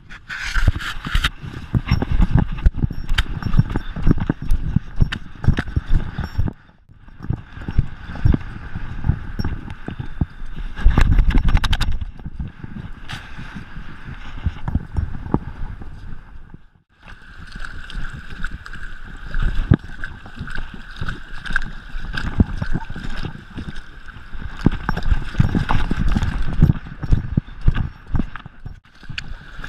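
Rapid, irregular thuds of a running Gordon Setter's strides, jolting the GoPro camera on her collar as her paws pound the wet sand. Twice, about 7 and 17 seconds in, it drops out briefly.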